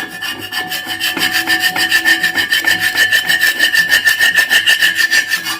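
A dosa turner scraping hard across a dosa griddle in rapid, even back-and-forth strokes, several a second, scraping off the grime that a salt-and-lemon scrub has loosened.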